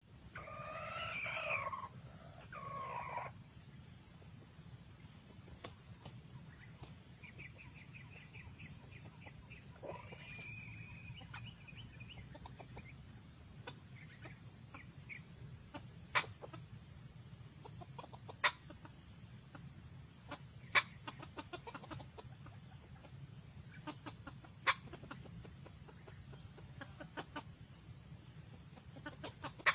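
Red junglefowl crowing once at the start. From about seven seconds in comes a run of rapid clucks, then a few sharp clicks, all over a steady high-pitched whine.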